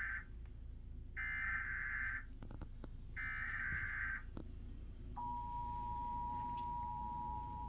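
Emergency Alert System SAME header: the end of one screeching data burst, then two more about a second apart, encoding a severe thunderstorm warning. About five seconds in, the steady two-tone EAS attention signal begins.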